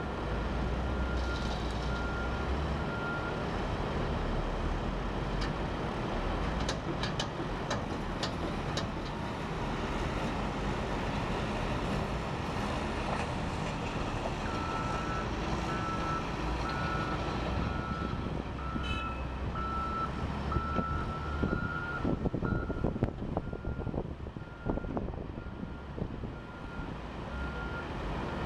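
Diesel engine of a Volvo wheel loader running as it dumps a bucket of dirt into a dump truck and backs away, with a reversing alarm beeping at a steady pitch, at the start and again through the second half. Several sharp knocks come a quarter to a third of the way in, and more near the end.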